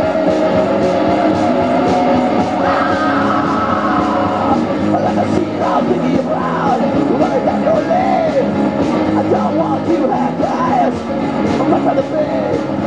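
Live garage rock band playing loud: electric guitars over a steady drum beat, with a man singing and yelling into the microphone, the vocal lines growing busier from about four seconds in.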